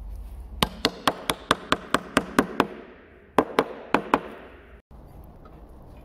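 Rapid run of sharp knocks or taps, about four a second: nine strikes, a short pause, then four more, each with a brief ringing tail.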